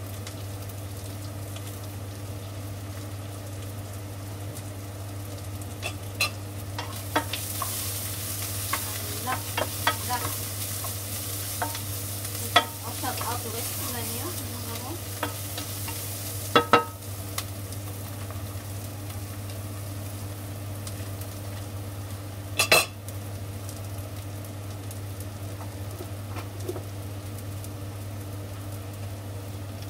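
Sliced onions sizzling in a frying pan, stirred and scraped around with a wooden spatula from about six seconds in to about seventeen seconds, with a few sharp knocks on the pan. One more knock comes about three-quarters of the way through, over a steady low hum.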